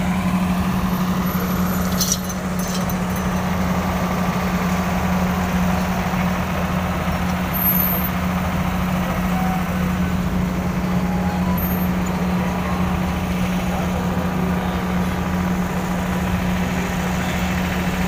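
An engine running steadily with a constant low hum, over a background of general noise; a brief click about two seconds in.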